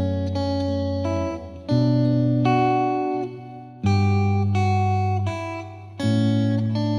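Background music played on guitar: plucked notes and chords, with a new phrase starting roughly every two seconds.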